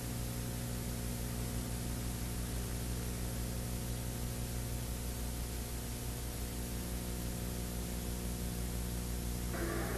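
Steady hiss with a low, even hum underneath: the background noise of an old video recording, with no other distinct sound. A louder rushing noise comes in just before the end.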